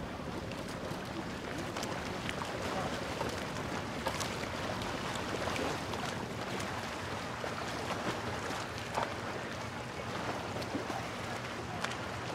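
Marina ambience: a steady low engine hum from boats in the harbour, with faint distant voices and scattered light clicks and taps.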